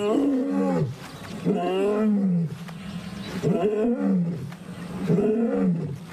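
Male African lion roaring, a territorial call answering rival males: four long calls in a row about a second and a half apart, each falling away in pitch at its end.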